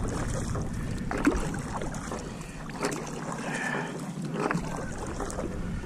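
Water lapping and splashing around a Kaskazi Dorado II kayak, with wind buffeting the microphone over the first three seconds and a few light knocks.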